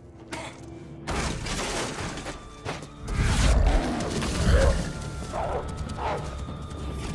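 Film soundtrack of a werewolf transformation: music with a sudden loud onset about a second in, deep booming impacts from about three to four and a half seconds in, and a held note near the end.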